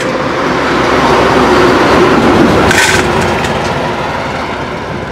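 Dry dog kibble poured from a bag into a stainless steel bowl: a dense rattle of pellets hitting metal, louder over the first three seconds and then easing off, with one short rustle of the bag near the middle.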